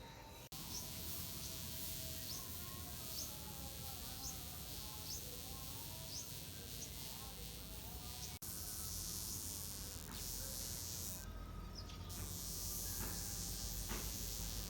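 A wasp buzzing in fits and starts with a wavering pitch, its wings beating while it stays grounded: a wasp with drooping wings that cannot fly. Faint short high chirps come about once a second through the first half.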